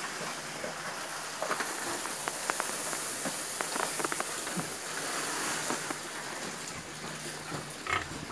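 A pig eating corn out of straw bedding: scattered light crunches and clicks of kernels being chewed, with rustling as its snout works through the straw.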